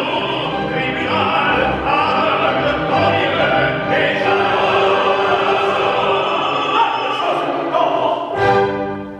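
Opera: a tenor singing with the orchestra.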